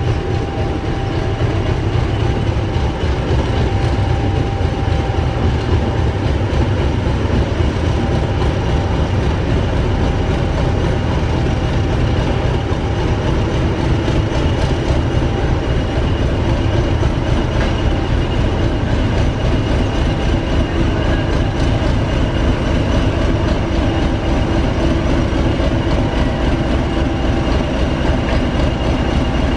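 English Electric Class 50 diesel-electric locomotive 50026 Indomitable moving slowly into sidings, its 16-cylinder diesel engine running loud and steady: a deep throb with a constant whine over it.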